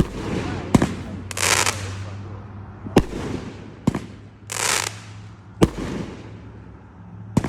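Consumer fireworks going off: about six sharp bangs at uneven intervals, with two longer hissing bursts between them.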